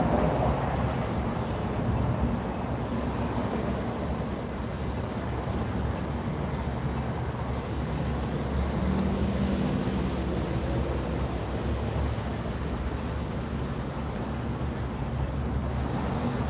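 Street traffic: a steady low rumble of cars passing on a city street, with one vehicle's engine hum standing out about halfway through.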